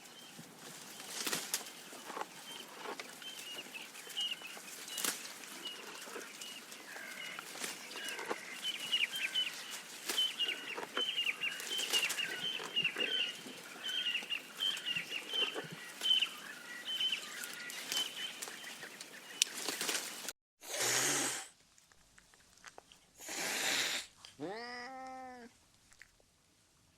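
Fowl peeping and clucking, a scatter of many short high chirps with occasional clicks, for about twenty seconds. After an abrupt break come two short breathy bursts, then a cat's meow falling in pitch near the end.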